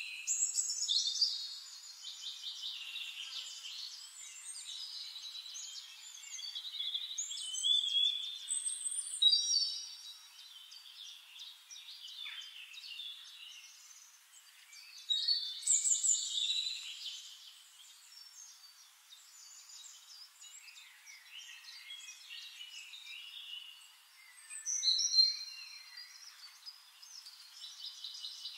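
Songbirds singing: overlapping chirps, trills and warbling phrases, with louder song bursts every several seconds.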